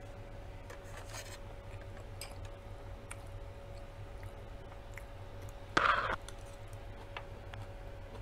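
Quiet eating sounds: a metal fork scraping and clicking in a glass bowl of rice, with faint chewing. There is one short, louder scrape-like noise about six seconds in, over a steady faint hum.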